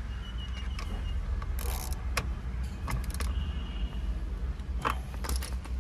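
Scattered clicks, knocks and light clinks of hand tools and parts being handled at a car's steering wheel during reassembly, over a steady low hum.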